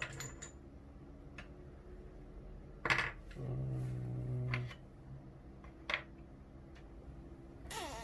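Small metal clicks and clinks as a picked Assa euro cylinder and a plug follower are handled, with a sharper click about three seconds in. A short low hum follows it.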